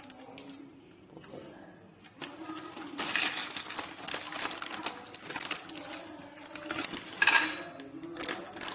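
Packaging being handled and opened: rustling and crinkling with small clicks, starting about two seconds in, with a loud crackle about seven seconds in.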